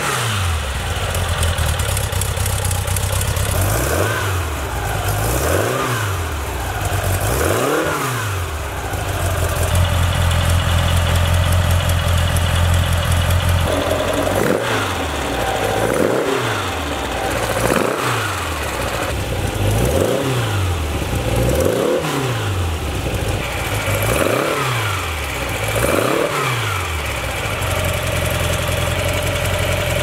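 Porsche 914 1.7/1.8 air-cooled flat-four running through a factory-style exhaust. The throttle is blipped over and over, about once every two seconds, and the engine is held at a steady higher speed for a few seconds partway through. Near the end it settles into a steady idle.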